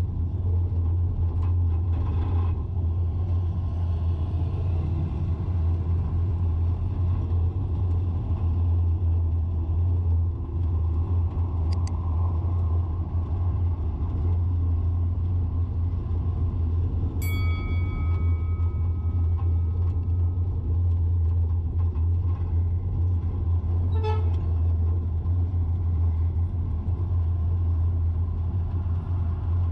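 Steady low rumble of a vehicle driving in city traffic. A little past halfway a car horn sounds one long note for about three seconds, and a brief second toot comes near the end.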